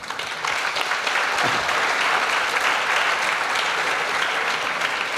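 Large audience applauding, the clapping breaking out at once and holding steady.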